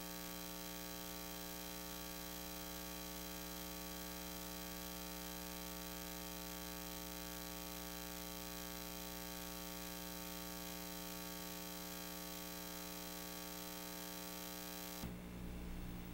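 Steady electrical mains hum with a buzzy edge, made of many evenly spaced tones, on the audio track. It cuts off abruptly about fifteen seconds in, leaving quiet room tone.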